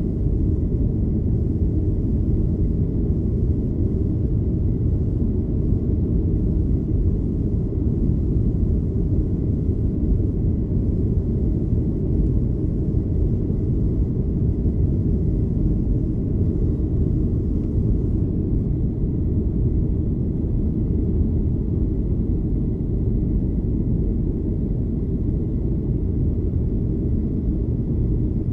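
Cabin noise of a Boeing 737-800 climbing after takeoff, heard inside near the wing: a steady low roar of its CFM56 turbofan engines and the airflow, with a faint steady high whine above it.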